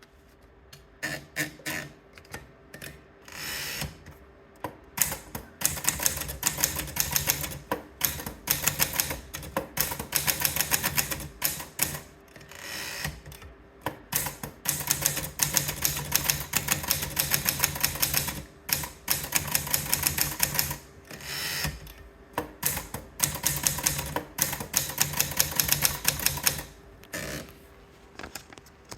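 Adler Gabriele 10 portable manual typewriter being typed on: fast runs of key strikes in bursts of a few seconds, with short pauses between.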